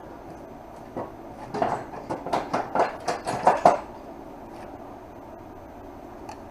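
A quick run of metallic clinks and clatters, a dozen or so sharp knocks over about three seconds, starting about a second in.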